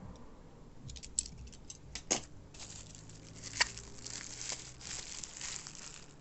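Packaging being handled and pulled open: a few light clicks and taps, then about two and a half seconds in a steady crinkling, tearing rustle with one sharp click in it.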